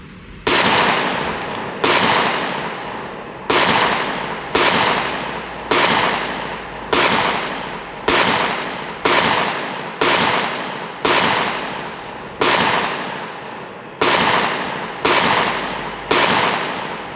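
A Glock 20 10mm pistol firing a full magazine of 10mm Auto in slow, steady semi-automatic fire. There are about fifteen sharp shots, roughly one a second, each trailing off in a long echo. It cycles every round with no malfunction.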